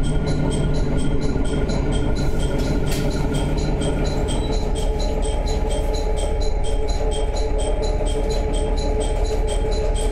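Diesel railcar heard from inside the carriage rolling through a station: a steady low rumble of engine and wheels, with the engine's low note dropping away about four seconds in as the train eases along the platform. A quick, even ticking runs through it.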